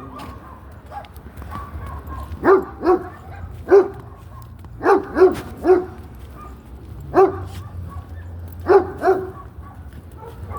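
A dog barking repeatedly, about nine barks in quick clusters of one to three, a second or so apart.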